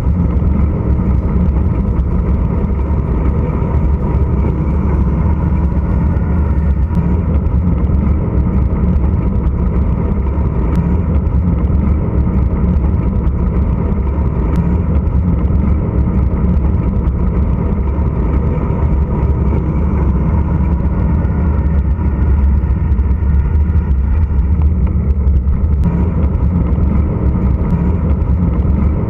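Wind buffeting an action camera's microphone, with bicycle tyres rumbling on asphalt, on a fast downhill ride. A loud, steady rush, deepest in the low end.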